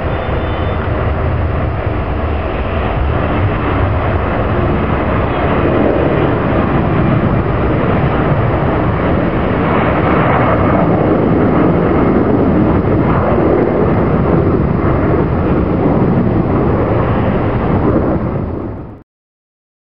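Boeing C-17 Globemaster III's four Pratt & Whitney F117 turbofans at takeoff power as the jet lifts off and climbs away: a loud, steady jet roar that swells over the first several seconds and cuts off abruptly near the end.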